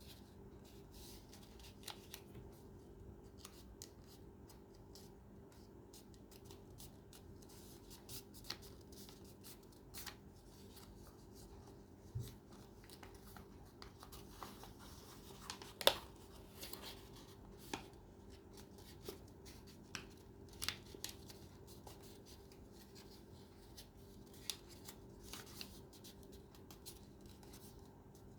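Paper being folded and creased by hand: faint, scattered crisp rustles and clicks, with one sharper snap about 16 seconds in, over a steady low hum.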